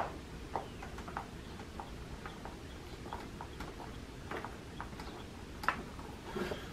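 A screw being turned in by hand with a screwdriver: a run of faint, irregular clicks and ticks, a few a second.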